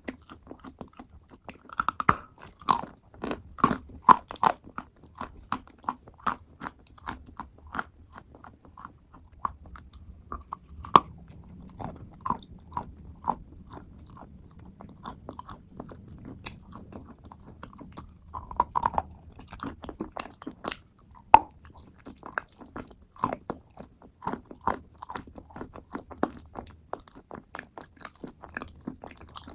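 Close-up chewing and crunching of clay paste and wet clay: many small sharp crackles and crunches with occasional harder bites, going on without a break.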